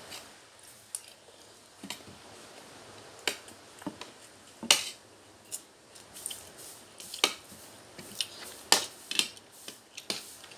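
Spoons and forks clinking and scraping on plates during a meal, in irregular sharp clicks, the loudest about halfway through and again shortly before the end.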